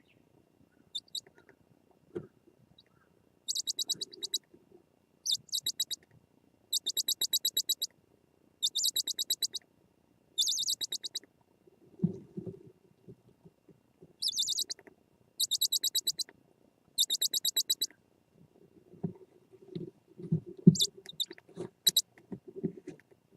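Japanese scops owls in a nest box giving short raspy calls, each a fast run of clicking pulses, repeated about ten times with brief gaps. Low knocks and scuffling of the birds moving in the box come in around the middle and, loudest, near the end.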